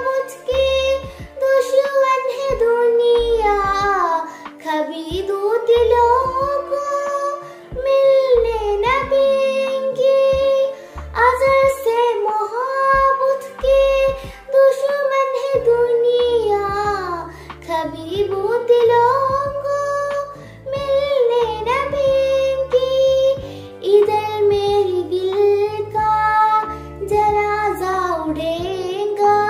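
A young girl singing a Hindi-Urdu song solo, with long held notes that slide up and down between phrases. Steady low notes sound beneath her voice.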